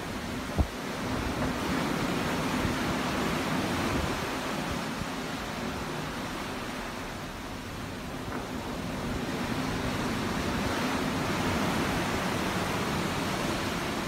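Ocean waves washing in, a steady rush that swells and eases twice. There is a short low thump about half a second in.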